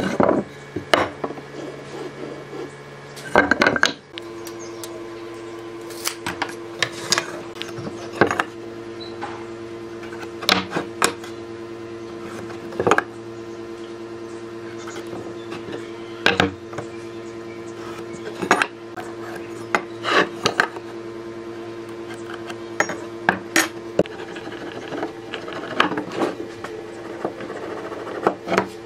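Hand marking-out on pine boards: a metal speed square, pencil and marking gauge clicking and knocking against the timber and the bench, with some scratching as lines are drawn and scribed. The knocks come irregularly, a few seconds apart, with a louder clatter about three and a half seconds in, over a steady low hum.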